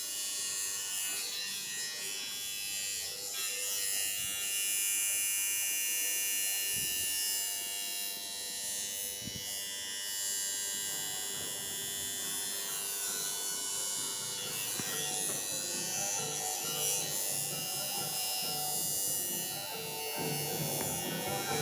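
Tattoo machine buzzing steadily as the needle works into the skin.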